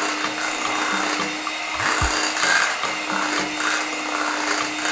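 Scarlett electric hand mixer running steadily, its beaters churning through whipped cream and condensed milk in a glass bowl: a constant motor hum under a rough, uneven churning noise.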